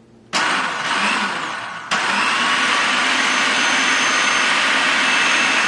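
Braun EasyPrep 8-cup food processor's motor running with an empty bowl: it switches on suddenly, eases off slightly, then surges back up about two seconds in and runs steadily with a high whine over the motor noise.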